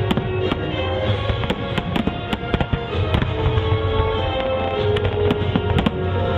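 Fireworks cracking and popping in quick, irregular succession over music playing loudly, with a low rumble of bursts underneath.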